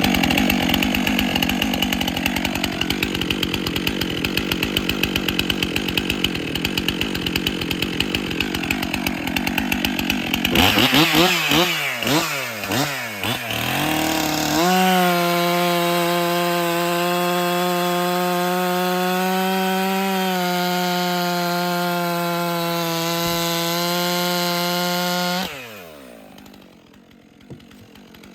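Stihl MS 400 C, a 66 cc two-stroke chainsaw, cutting through a log at full throttle for about ten seconds. The engine speed then swings up and down for a few seconds and settles into a steady high whine for about ten seconds, before the throttle drops back sharply near the end.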